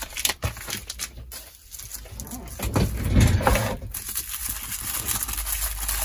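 Plastic bag and paper wrapping crinkling and rustling as hands unwrap a small lock part, with irregular crackles that are loudest about three seconds in.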